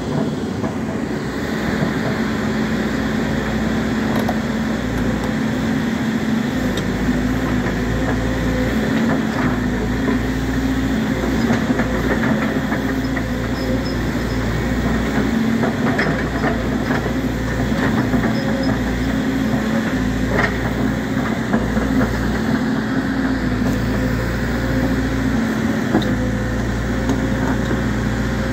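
Volvo EC210D crawler excavator's diesel engine running steadily under load while the machine digs with its bucket, with a few sharp knocks.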